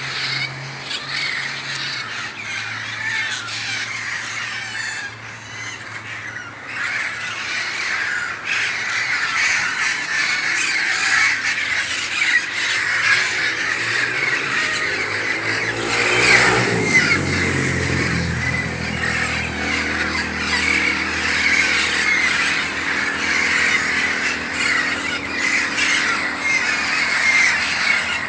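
A flock of parakeets squawking and chattering nonstop, loud enough to wake someone. About midway a low drone swells and fades under the birds.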